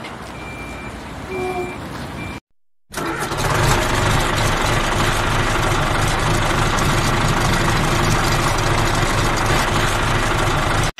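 A toy tractor running: a loud, steady, engine-like drone with a strong low hum that starts after a short break about three seconds in. Before it, a quieter stretch with a few short high beeps.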